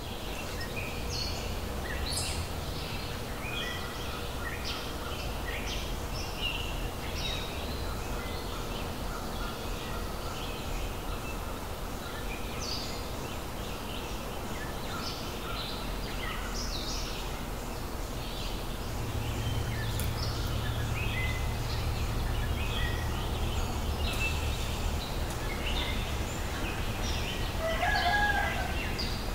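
Many small birds chirping in short, scattered calls over a low steady rumble; near the end a rooster crows once, the loudest sound.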